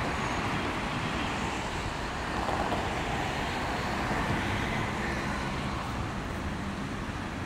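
Steady street traffic noise: a low rumble and hiss of road vehicles passing a busy junction.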